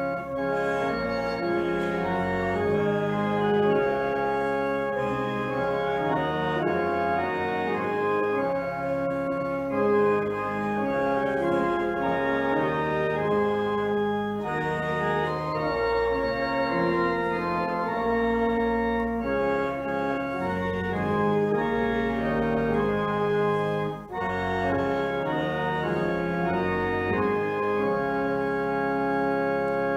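Church organ playing a hymn in full held chords that change every second or so, with short breaks between phrases.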